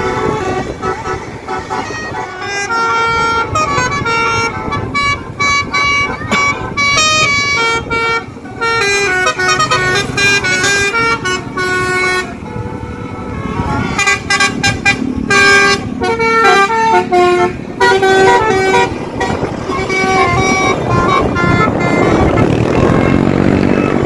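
Tour bus's 'telolet' Basuri multi-tone horn playing a fast stepped melody in several bursts with short breaks, over engine and traffic noise that swells near the end.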